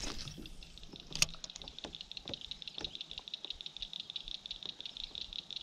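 Fishing reel being cranked on a retrieve: a fast, even ticking, with one sharper click about a second in.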